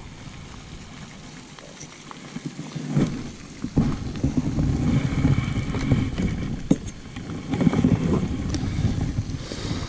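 Wind buffeting the microphone: a fluctuating low rumble that sets in about three seconds in, with a few light knocks.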